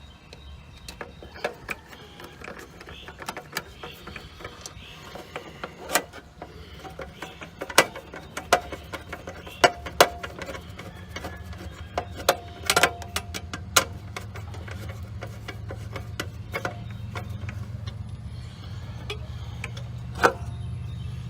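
Irregular metallic clicks, taps and a few sharper knocks of hand tools and screws as a run capacitor is fastened back into an air-conditioner condenser cabinet. A low steady hum underneath grows louder in the second half.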